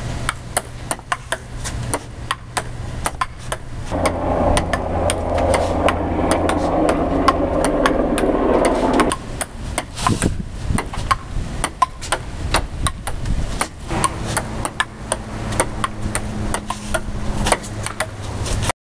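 Table tennis rally: quick, irregular clicks of a ping pong ball striking paddles, the table and a table tennis rebound panel. From about four to nine seconds in, a steady louder rumbling noise runs under the clicks.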